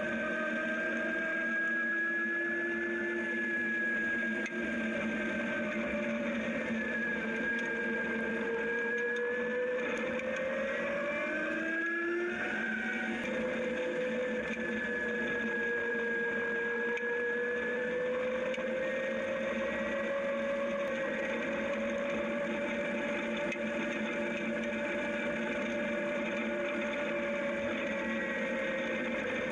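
Zero DSR electric motorcycle's motor whining as it rides along a gravel road, the whine's pitch sinking and rising with road speed and climbing sharply about twelve seconds in. Under it runs a steady rush of tyre and wind noise.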